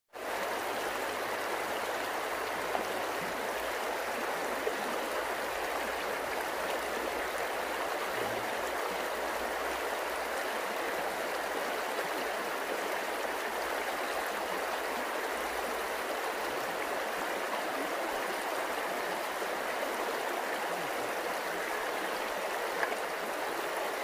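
Shallow stream flowing over a stony bed: a steady rush of running water.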